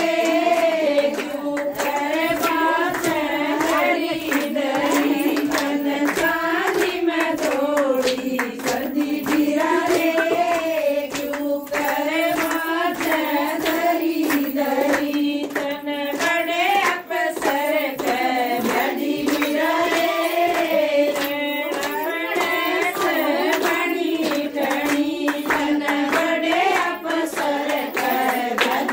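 A group of women singing a Haryanvi folk song in unison, with steady hand clapping in time.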